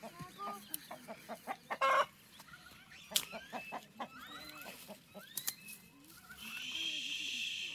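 Chickens clucking in a scatter of short calls, with a few sharp clicks along the way. A steady hiss comes in for the last second or so.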